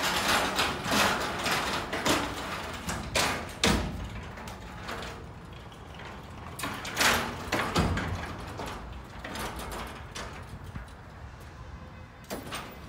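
Portable aluminium shelving unit on casters being rolled across a box truck's cargo floor and out onto its metal liftgate: wheels rolling and the frame rattling, with a series of clanks and knocks, loudest near the start and again about seven seconds in.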